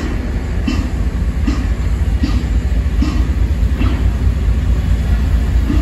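Passenger train rolling slowly past the platform, its wheels clacking at an even beat about every three-quarters of a second over a steady low rumble.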